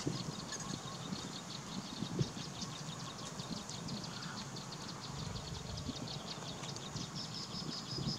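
Rapid high-pitched chirping from a small creature, repeating steadily at about seven chirps a second, over a low rumbling background.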